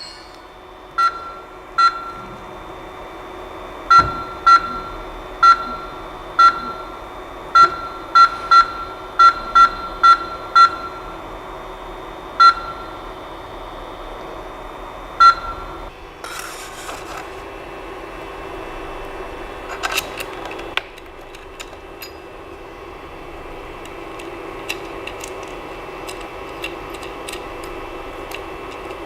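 Short electronic beeps from the Creality CP-01's control panel, one per button press: about a dozen identical single-pitch beeps over the first fifteen seconds, some coming in quick runs. Under them is the steady hum of the machine's cooling fans. A brief hiss comes about sixteen seconds in and a short clatter about twenty seconds in.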